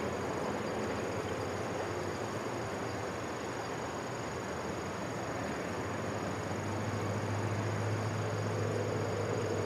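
Steady high-pitched drone of insects over outdoor background noise, with a low hum that swells about seven seconds in.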